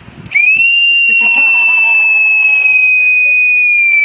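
A long, loud blast on a railway conductor's whistle, a single steady high tone held for nearly four seconds that dips slightly at the end: the signal for a train to depart.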